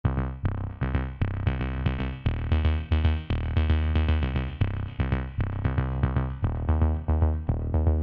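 Background music with a steady beat and a heavy bass line.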